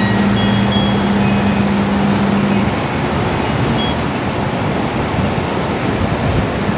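Steady outdoor background noise with a steady low hum that stops about two and a half seconds in, and a couple of faint chime-like pings near the start.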